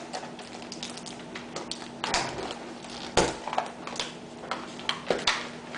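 Hands opening a cardboard box of trading card packs: irregular crinkles, taps and rustles of cardboard and packaging, with the sharpest snaps about two and three seconds in, over a faint steady hum.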